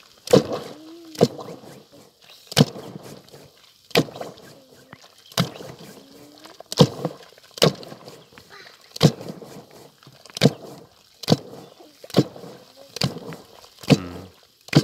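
Wooden olkipere whisk spun between the palms in a metal pot of herbal bone soup, churning and sloshing the liquid, with sharp knocks about once a second as the whisk head strikes the pot. The whisking blends the fat into the soup.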